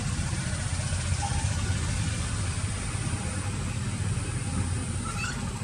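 A steady low rumble of background noise, with two faint short chirps, one about a second in and a rising one near the end.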